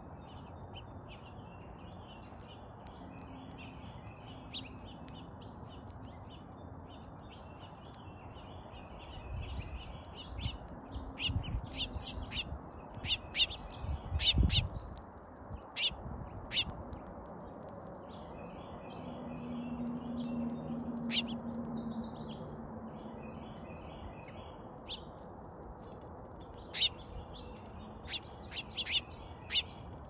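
Small songbirds chirping and twittering, with sharp clicks of beaks pecking seed close by, bunched in the middle and again near the end. A low thump about halfway through is the loudest sound.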